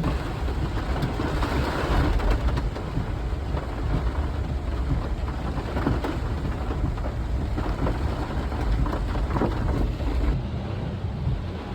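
Floodwater and rain noise with a steady low rumble, as a vehicle drives along a road with water running down it in a hurricane storm.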